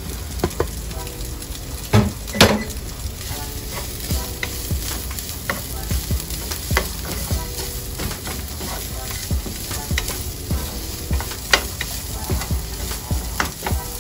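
Bacon frying in oil with garlic, ginger and chili flakes, sizzling steadily while it is stirred, the utensil knocking and scraping on the pan now and then. The loudest knocks come about two seconds in.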